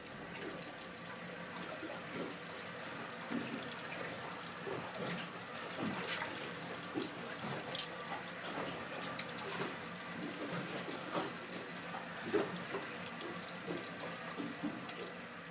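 Water lapping and sloshing against a boat's hull, with scattered small knocks and clicks.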